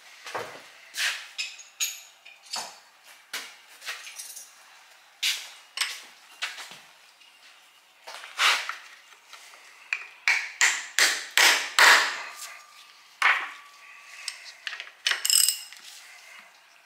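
Metal hand tools (a ratchet wrench and a hammer) clanking and knocking against the cast-iron block of a Ford flathead V8 during teardown: a string of sharp separate knocks and clicks, coming fastest and loudest about ten to twelve seconds in.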